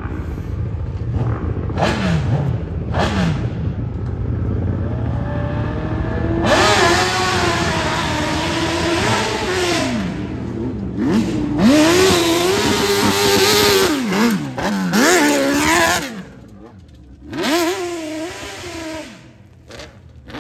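Open-class hillclimb motorcycle engine revving hard, its pitch swinging up and down as the throttle is worked on the climb. A loud rushing noise of the spinning rear tyre throwing dirt runs through the middle. The sound drops away briefly twice in the last few seconds.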